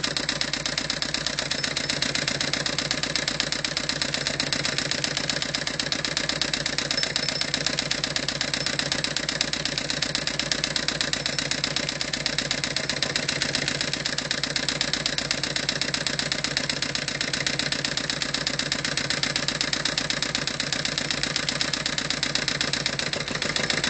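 Homemade scrap-built Stirling (hot-air) engine running steadily, its flame-heated cylinder and flywheel mechanism making a rapid, even clatter.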